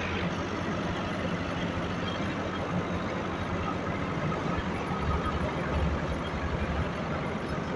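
Tractor-powered wheat thresher running steadily while wheat is fed into it: a low engine drone under the noisy whir of the threshing drum and fan, with a slight swell in the low drone about five seconds in.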